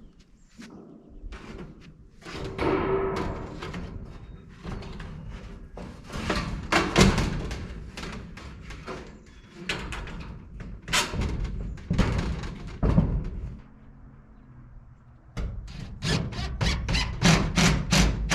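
Sheet-metal siding panels being handled and fastened to a timber frame: uneven knocks and clicks with squeaks and a metallic ring, and a quick run of about four knocks a second near the end.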